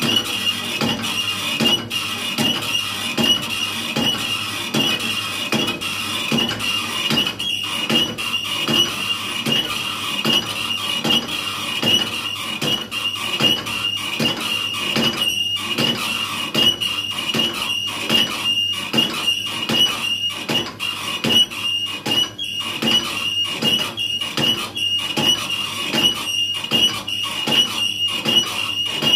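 Cricket bat knocking machine striking the face of a new willow bat in an even rhythm, about two knocks a second, with a steady high whine underneath. The blows are knocking the bat in, compressing the willow of the face before the bat is played with.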